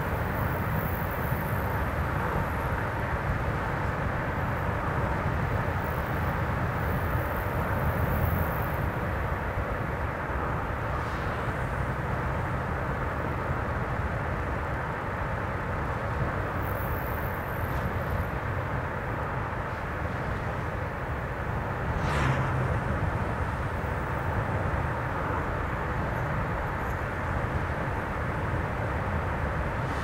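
Steady road noise of a car driving along a highway: tyres on the road surface and the engine running. About two-thirds of the way through there is a short, louder whoosh.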